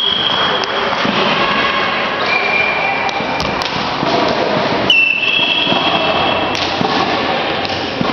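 Busy indoor sports-hall ambience: a loud wash of distant voices and thuds in a reverberant hall, with a sharp knock about five seconds in. A thin high tone runs through it, jumping to a new pitch a few times.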